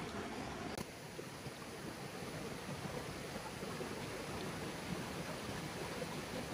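Steady rush of a stream running over rocks, with a brief dropout just under a second in.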